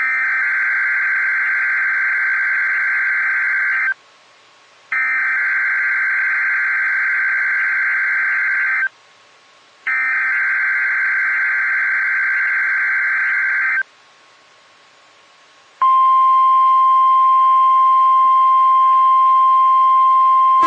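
Emergency Alert System test tones on NOAA Weather Radio. Three bursts of the SAME digital header, a buzzing warble of data tones about four seconds each with about a second between them, are followed after a two-second gap by the steady single-pitch 1050 Hz warning alarm tone, which starts about three-quarters of the way in.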